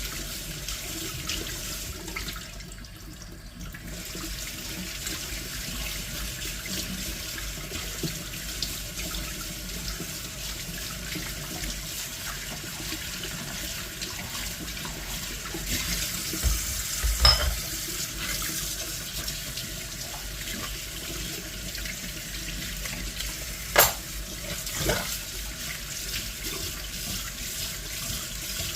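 Tap water running steadily into a sink, easing off briefly about three seconds in, with a few sharp knocks later on.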